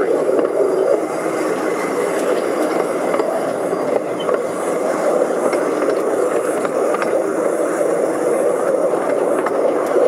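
Narrow-gauge train running along the track, heard from an open-sided carriage: a steady rumble and rattle with occasional sharp clicks.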